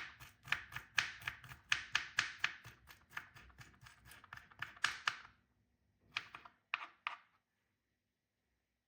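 Knife chopping garlic and ginger on a cutting board: quick, even chops at about three to four a second that stop about five seconds in, followed by three more chops a second later.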